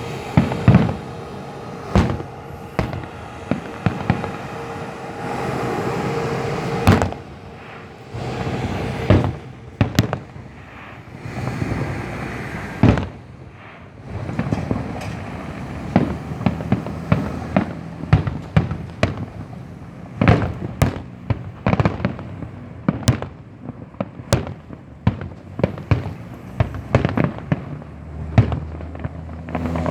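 Fireworks display: a string of sharp shell bursts with crackling between them, the bangs coming faster and closer together in the second half.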